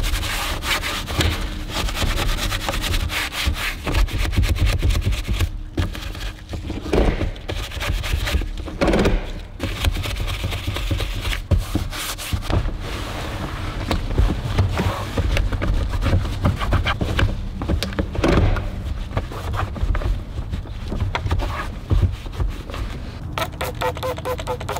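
Soft-bristled detailing brush scrubbing foamy cleaner over a textured plastic center console and shifter surround: rapid, scratchy rubbing strokes with a few brief pauses.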